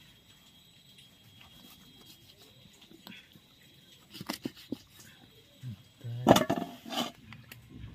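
Knife cutting raw chicken on a wooden stump chopping block, with a few sharp knocks of the blade against the wood about halfway through. Near the end a dog barks loudly twice, about a second apart.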